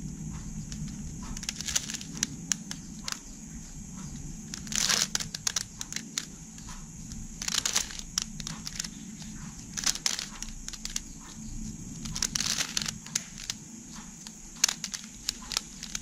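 Plastic 3x3 Rubik's cube being turned by hand, its layers clicking as they rotate, with quick flurries of several turns in a row every two to three seconds. A steady low hum runs underneath.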